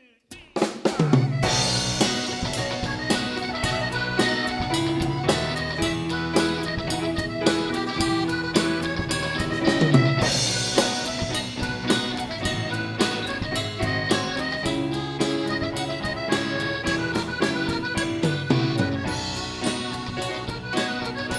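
Live band music with a Hohner Morino piano accordion playing over drum kit, bass guitar and keyboards, starting about a second in with a steady drum beat.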